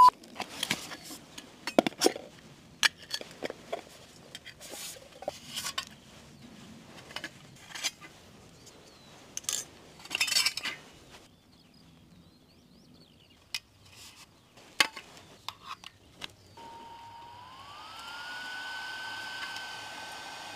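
Light metal clinks and clicks as the parts of a small camping stove and a metal mug are handled and fitted together. About three-quarters of the way through, the stove's small electric fan, run from a power bank, starts with a whine that rises in pitch and then runs steadily.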